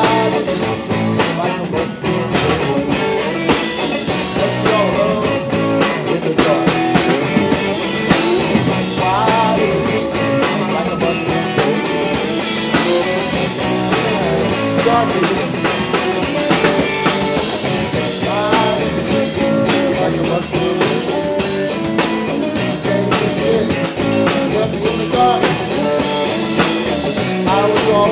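Live blues-rock band playing loud: electric guitar with bending, sliding notes over bass and a drum kit.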